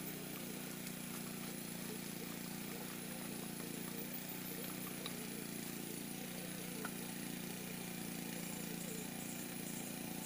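Steady drone of a distant engine over outdoor ambience, with two faint knocks of wood being stacked partway through.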